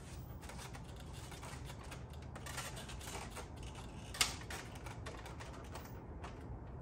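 Irregular light clicking and tapping of small metal and plastic parts and tools being handled behind the grille and headlight of an SUV's front end, with one sharper click about four seconds in.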